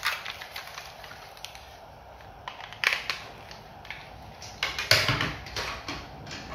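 Hard plastic toys being handled and set down on a table: a string of light clicks and knocks, with louder clatters about three seconds in and about five seconds in.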